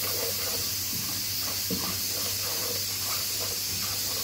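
Onion and tomato masala with spices sizzling steadily in hot oil in a pot, while a wooden spoon stirs it with soft scrapes and a light knock about one and a half seconds in.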